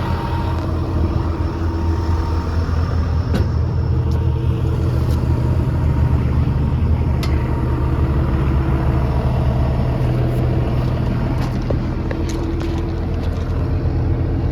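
John Deere 200 LC excavator's diesel engine running steadily at idle, with a few light clicks over it.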